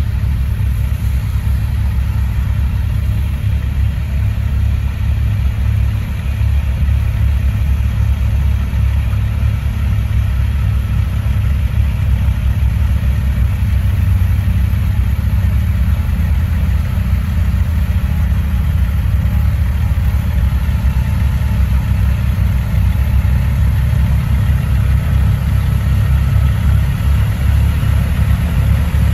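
Heavy diesel engines of a CAT loader running a LaRue snow blower and of the dump truck it is loading, running steadily and loud, with most of the sound low-pitched.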